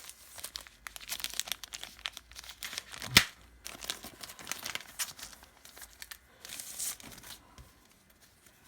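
Packaging wrap crinkling and tearing as factory-wrapped contents are pulled open by hand, with one sharp snap about three seconds in. The crackling thins out near the end.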